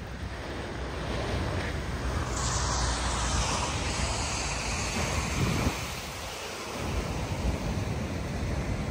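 Ocean surf breaking and washing over rocks, a continuous rushing wash that swells about two seconds in, with wind rumbling on the microphone.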